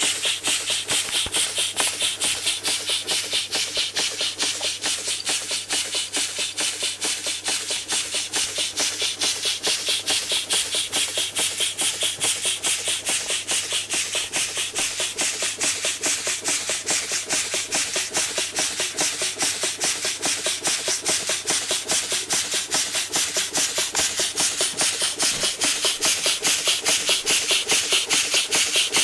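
Schoenner Lipsia toy steam engine running steadily: a fast, even beat of hissing exhaust puffs, getting slightly louder near the end.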